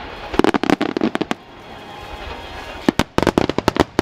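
Starmine fireworks going off in quick succession: a dense volley of sharp bangs, a quieter stretch of crackling, then another rapid volley of bangs about three seconds in.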